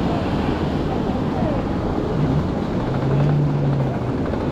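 Wind buffeting the microphone over breaking surf, with a steady low engine hum for about two seconds in the second half.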